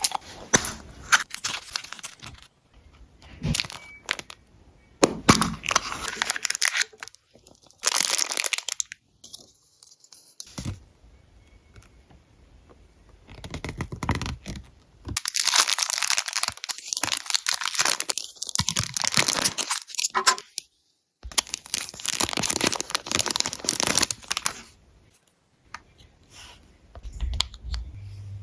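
Packaging being torn open and plastic wrapping crinkled and handled by hand, in irregular spells of rustling with sharp clicks and short pauses; the longest stretches of steady rustling come in the second half.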